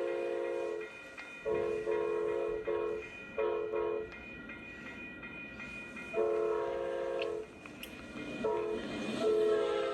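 Locomotive multi-chime air horn sounding a series of long and short blasts over the rumble of a train. Near the end the chord starts to fall in pitch as the train passes.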